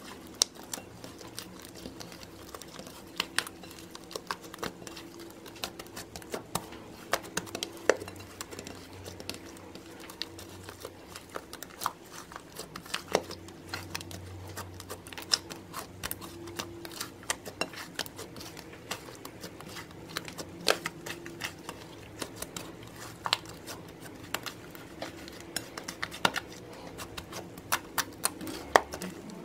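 Thick gold metallic slime being squeezed, kneaded and poked by hand, giving irregular sticky clicks and small pops.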